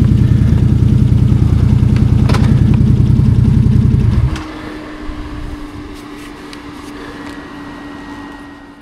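A Can-Am Outlander 850 ATV's V-twin engine running steadily, then shut off abruptly about four seconds in. What remains is a faint steady hum with a few clicks.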